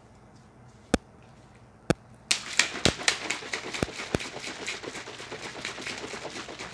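A few sharp clicks about a second apart, then from about two seconds in a plastic shaker bottle of water and drink powder shaken hard: liquid sloshing with fast rattling against the lid.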